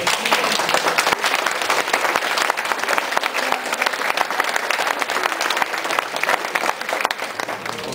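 Crowd applauding: many hands clapping steadily, starting abruptly and stopping near the end.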